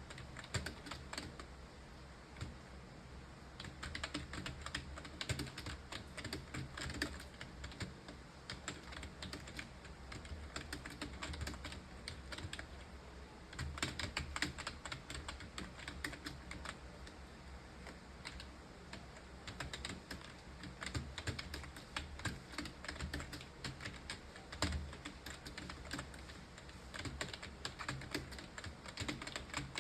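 Rapid, continuous typing on a computer keyboard: a dense stream of key clicks with only brief lulls.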